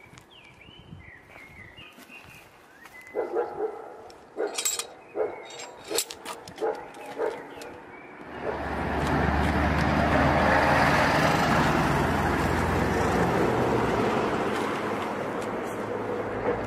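Cast-iron drain grate and its lifting hooks clanking as the grate is lowered and set into its frame: a string of sharp metallic knocks with a ringing tone. About halfway through, a loud steady rushing noise with a low hum takes over and stays to the end.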